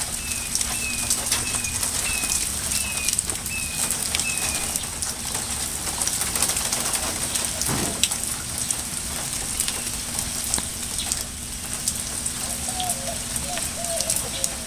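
Steady rain falling, with many small drip and splash clicks. A bird repeats a short chirp about twice a second during the first few seconds, and lower, shorter calls come in near the end.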